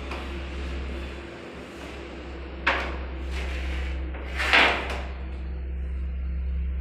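Steady low hum with two sudden short noises: a sharp one about three seconds in, and a louder, slightly longer one about a second and a half later.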